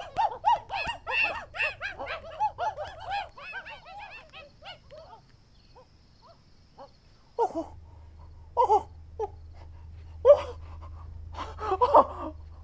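Many monkey-like hoots and chattering calls overlap, then fade away over the first few seconds. After a short lull, a single monkey voice gives occasional hoots and shrieks over a low hum.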